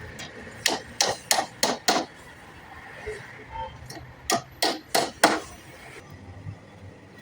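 Hammer striking wood in two quick runs of sharp blows, five then four, about three a second, during carpentry work on a wooden door.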